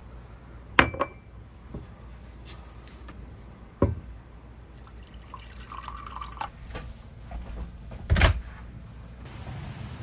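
Three sharp knocks, about a second in, near four seconds and just after eight seconds, among lighter clicks and taps over a low steady hum, in a small room.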